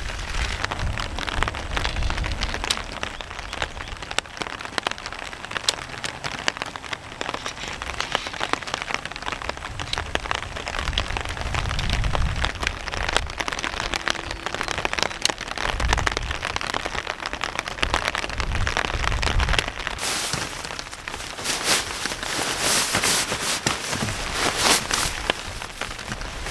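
Rain falling on paving stones, a dense steady patter of drops. From about twenty seconds in, louder bursts of rustling join it.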